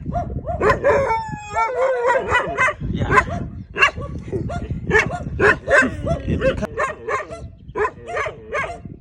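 A dog barking repeatedly, with a drawn-out, wavering howl about a second in.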